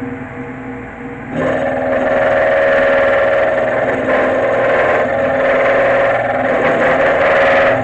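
A machine tool's motor running steadily. A little over a second in, it gets much louder and harsher as the cutter bites into the metal hardware being modified, and a steady machining noise with a ringing tone holds from there on.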